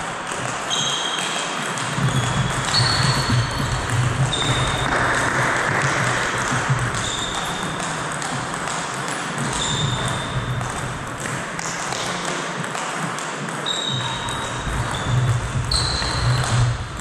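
Table tennis ball bouncing off the table and striking the paddles in rallies, each contact a short high ping, the pings coming in quick runs with a pause between points.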